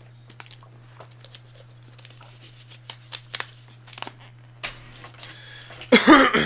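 Plastic water bottle crinkling and clicking in the hands while a man drinks from it, over a steady low hum. Near the end comes a short, loud vocal sound.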